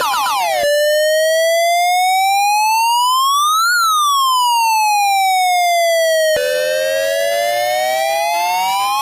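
Argentine police car siren switching tones. A few quick falling sweeps end a fraction of a second in, then a slow wail rises and falls once. About six seconds in, a different-sounding wail takes over and begins rising again.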